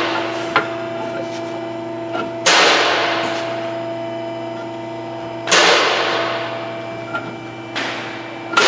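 Three sharp, heavy impacts about three seconds apart, each trailing off slowly over a couple of seconds, over a steady workshop hum.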